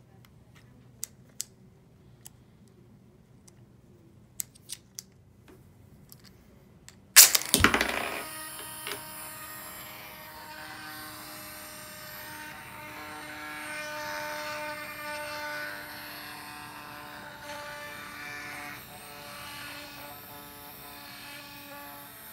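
Mk 46 torpedo gyroscope: a few light clicks of winding and handling, then about seven seconds in a sharp, loud snap as the gyro is fired. The spun-up rotor then whirs steadily with several held tones, swelling a little midway.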